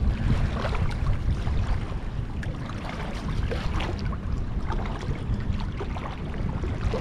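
Wind rumbling on the microphone over light splashing and sloshing of water as a cast net is hauled in through shallow river water.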